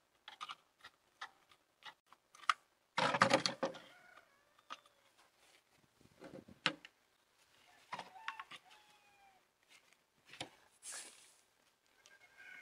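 Scattered light metal clicks and a short rasping run of clicks about three seconds in, from a socket wrench loosening the small 10 mm nuts on a golf cart's throttle sensor housing. Faint bird chirps are heard now and then.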